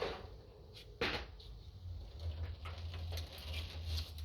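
Clicks and knocks from parts and tools being handled under a pickup during a DEF tank removal, with one sharp knock about a second in and a few lighter clicks after, over a low steady rumble.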